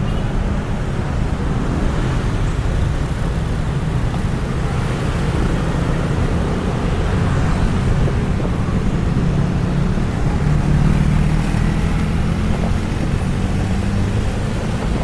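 Steady road traffic noise with a low rumble, heard while riding a bicycle along the road; it swells a little about ten seconds in.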